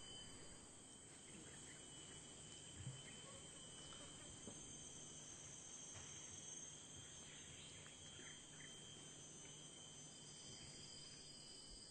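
Near silence: faint outdoor ambience with steady high-pitched insect trilling, like crickets, and one soft low thump about three seconds in.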